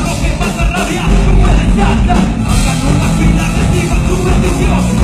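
Live rock band playing loudly: electric guitars, bass and drums with a singer's vocals over them.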